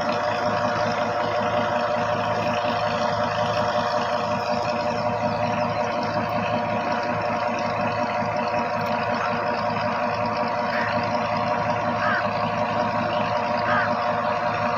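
An engine running steadily at idle: a constant, even hum with fixed tones that never changes speed. A few faint short chirps come near the end.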